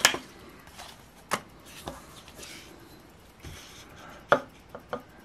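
Stiff scratch-off lottery tickets being handled, separated and laid down on a wooden table: light paper rustling with a few sharp taps, the first the loudest.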